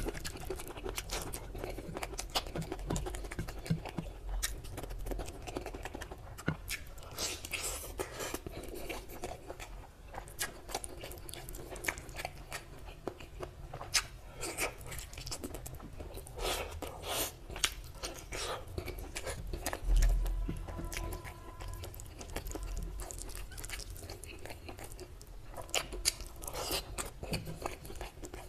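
Close-up eating sounds of mutton curry and rice eaten by hand: chewing and biting meat off a mutton leg piece, with many sharp wet clicks and smacks, and fingers working through curried rice. A low bump about two-thirds through is the loudest sound.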